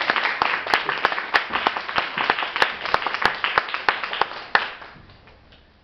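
Audience applauding, a dense patter of handclaps that dies away about five seconds in.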